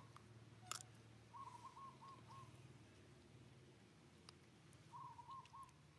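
Faint bird call in the background: a short phrase of one note followed by a few quick notes, heard twice. A single sharp click comes under a second in, over a low steady hum.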